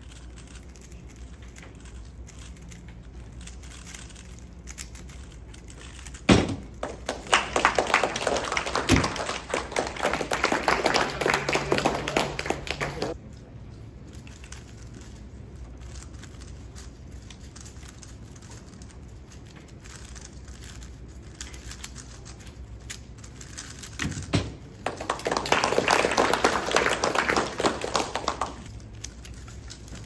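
3x3 speedcubes being turned rapidly: dense plastic clicking in two bursts of several seconds, each opening with a sharp knock.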